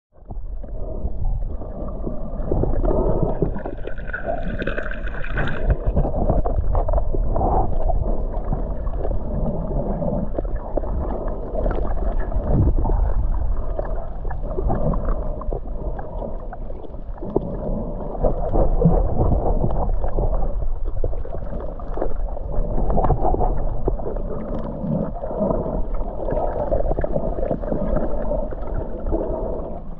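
Muffled underwater water noise picked up by a camera in a waterproof housing: a steady low wash with gurgling and frequent small knocks and ticks. A brief higher tone sounds about three to six seconds in.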